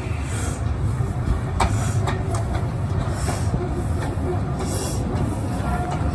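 Steam train running along the track: a steady low rumble, a few sharp clicks of wheels over rail joints about two seconds in, and hiss now and then.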